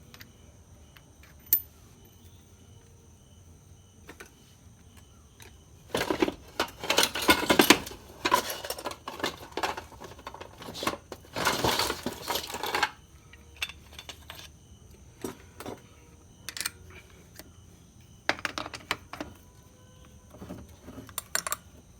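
Small metal engine parts and tools clinking and rattling as they are handled on the bench, with a sharp click about a second and a half in and two longer spells of clattering about six and eleven seconds in.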